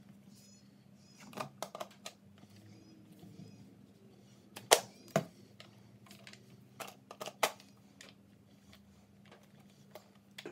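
Plastic parts of an electric paint spray gun being handled and fitted together: scattered clicks and knocks, the loudest two close together about halfway through.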